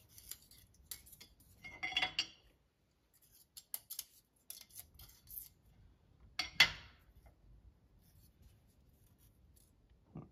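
Light metallic clicks and scrapes as a steel straight edge and feeler gauge are moved and set across an engine block's deck to check it for warp. There is a brief clatter about two seconds in and a sharper clink at about six and a half seconds, the loudest sound.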